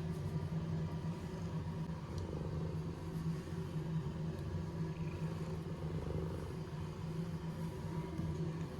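A cat purring steadily and continuously, a low rough rumble close to the microphone.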